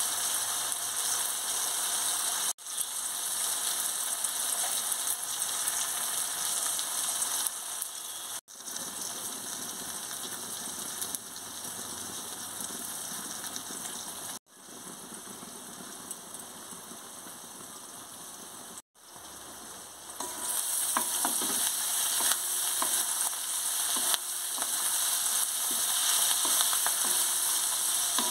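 Chopped onions sizzling in hot oil in a metal kadai, a steady hiss that cuts out briefly four times. About two-thirds of the way in it grows louder, with the scrape and clatter of a wooden spatula stirring the onions around the pan.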